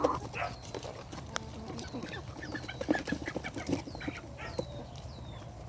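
Chickens clucking in short bursts, with the last of a rooster's crow cutting off right at the start. Short high chirps falling in pitch repeat above them several times.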